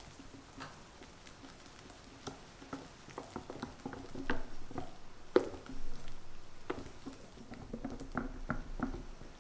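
Silicone-coated balloon whisk mixing meringue into egg-yolk batter in a glass bowl: soft, quick taps and squishy strokes. They get busier about two seconds in, with the sharpest tap around the middle.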